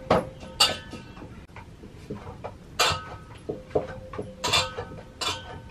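Small kitchen knife clicking against a stainless steel plate while cutting homemade paneer into cubes: a handful of sharp, irregular clicks, several with a brief metallic ring.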